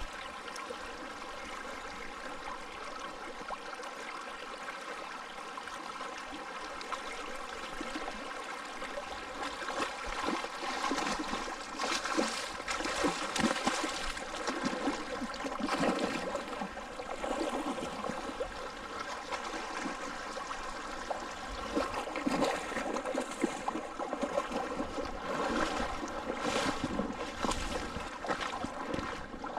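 Fast-flowing river water running steadily, with irregular sharper splashes coming in from about ten seconds in.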